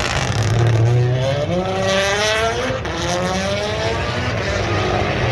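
Rally car's turbocharged engine accelerating hard past on a tarmac special stage, its note climbing in pitch, dropping back and climbing again.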